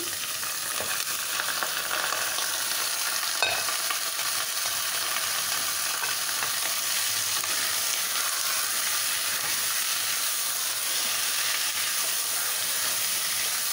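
Raw mutton pieces sizzling in hot oil in an aluminium pressure cooker, stirred with a wooden spoon as the meat is fried. A single knock about three and a half seconds in.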